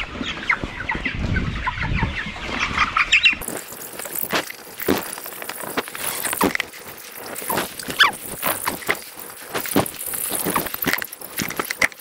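A flock of 26-day-old broiler chickens cheeping and clucking, with many short calls overlapping. There is a low rumble for the first three seconds or so.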